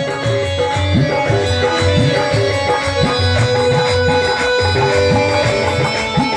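Instrumental interlude of a bhajan: tabla playing a steady rhythm, its bass drum bending up in pitch on several strokes, under long held melody notes.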